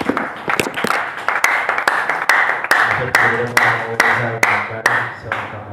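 Congregation clapping in a steady rhythm, a little over two claps a second, along with music.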